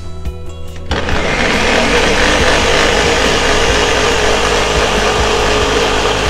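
Countertop blender running steadily at high speed, pureeing curry paste ingredients with a little water. It comes in loud about a second in, after a moment of background music.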